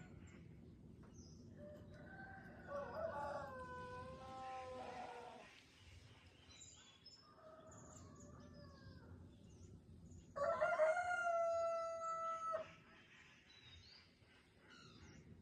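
Rooster crowing twice: a first crow, then a louder, nearer one about eight seconds later, each a long call that holds and then breaks off. Short high chirps from smaller birds come in between.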